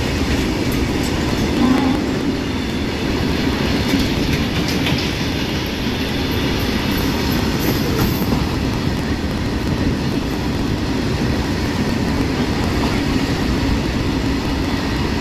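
Passenger train running on the rails: a steady rumble of wheels and carriage with a few faint clicks.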